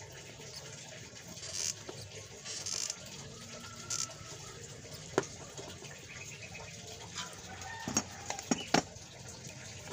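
Low background noise with a few sharp small clicks as a battery cell and a small Bluetooth receiver are handled and hot-glued together. A faint bird call sounds in the background about three seconds in.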